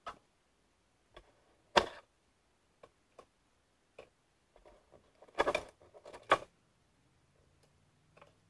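Cardboard jigsaw puzzle pieces dropped one at a time into a small metal tin, making scattered clicks and clatters: a sharp one about two seconds in and a quick run of them between about five and a half and six and a half seconds in.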